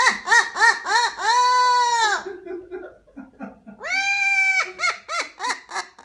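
Amazon parrot mimicking an evil villain laugh: a quick run of 'ha' notes, a long held 'haaa' about a second and a half in, a quieter stretch, then another long note and a fast run of 'ha's near the end.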